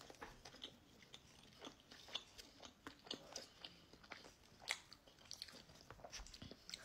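Faint chewing of a sandwich, with many small, irregular crackly clicks from the mouth and the crusty bread.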